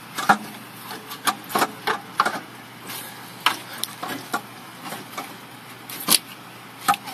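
Irregular metal clicks and knocks, about a dozen sharp hits, as a Northstar engine's alternator is handled and wiggled among the surrounding parts from below.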